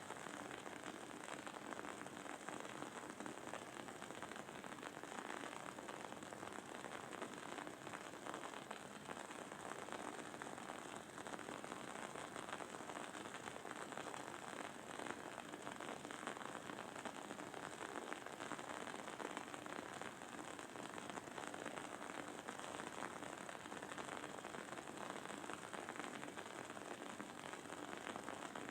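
Wooden candle wick burning with a steady, dense crackle and sizzle: many tiny pops and ticks running together.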